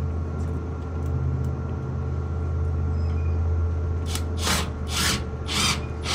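A vehicle engine idling with a steady low hum. From about four seconds in, short hissing bursts come roughly twice a second, each louder than the last.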